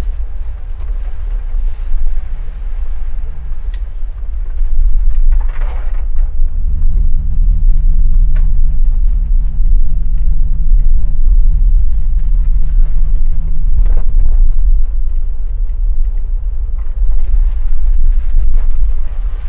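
In-cabin sound of a Mercedes G350 CDI BlueTec G-Wagon with a 3.0 V6 diesel, driving on rain-soaked roads. A deep, steady rumble runs throughout. From about six seconds in, a steady engine and drivetrain drone holds for around eight seconds, and short sharp ticks come here and there.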